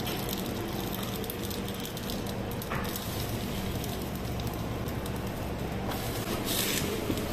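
Steady hum and hiss of a shawarma shop's cooking equipment, gas broiler and griddle, with light sizzling. A short burst of hiss comes about six and a half seconds in, as the press goes down on the wraps on the griddle.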